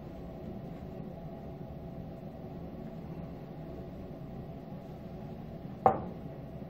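Steady low hum, then near the end a single sharp knock as a wooden kukri is rapped upright on the workbench to seat its zelkova blade in the walnut handle.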